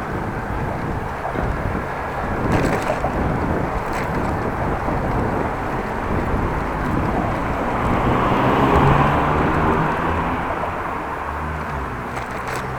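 Outdoor road and traffic noise heard while riding a bicycle, with a motor vehicle passing and growing loudest about eight to nine seconds in. There are brief knocks about two and a half seconds in and again near the end.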